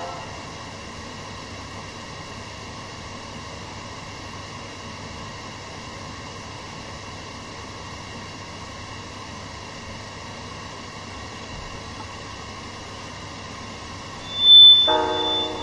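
Steady background hiss with a faint hum on a live stream between songs. About a second before the end, a short loud burst with a high ringing tone, then the next song's backing music starts with held notes.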